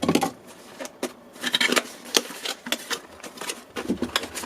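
A product box being opened and its packaging handled: irregular rustling, scraping and light clicks.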